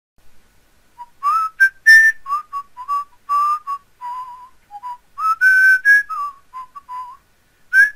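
A short whistled tune: a run of quick notes, a few held longer, some sliding up into pitch, ending in two quick higher notes.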